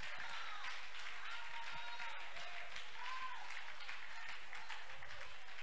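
A congregation applauding steadily, with faint voices calling out over the clapping.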